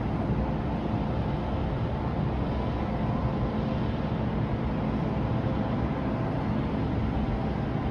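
Steady low rumble of city background noise, even throughout, with no single source standing out.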